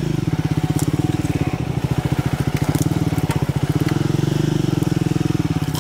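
Triumph Scrambler 400X's single-cylinder engine running steadily at low revs as the bike creeps through woods, with brush and twigs crackling and breaking against it.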